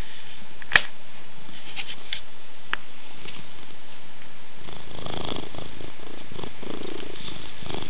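Domestic cat purring close to the microphone, starting a little past halfway. A single sharp click comes about a second in.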